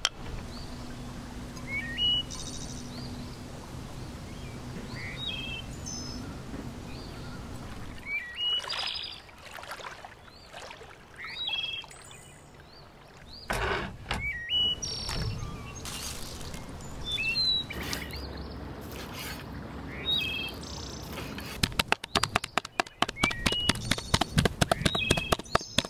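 Small birds chirping throughout, short rising and falling calls every couple of seconds. Near the end, two large knives chop raw beef on a wooden cutting board in fast, even strokes, the loudest sound.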